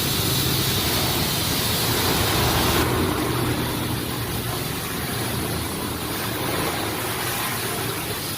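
High-pressure washer running: a steady motor hum under the hiss of water spraying, washing mud off the motorcycle. The hiss changes slightly about three seconds in.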